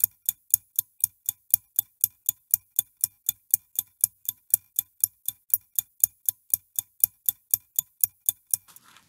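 Clock ticking sound effect: an even run of sharp ticks, about four a second, that stops shortly before the end.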